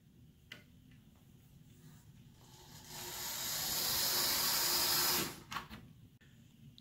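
HO scale diesel model locomotive's small electric motor and gears whirring under load as the throttle is slowly brought up, hauling passenger coaches up a steep 9.5% grade. The whir swells from about three seconds in and stops abruptly a little after five seconds.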